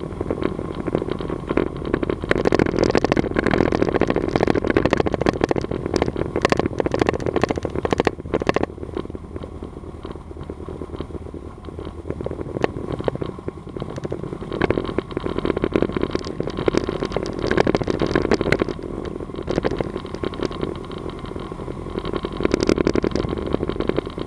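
Cessna 182RG's six-cylinder Lycoming engine and propeller running at low power on the ground, heard from inside the cockpit. The engine noise rises and falls, with scattered crackling clicks and rattles.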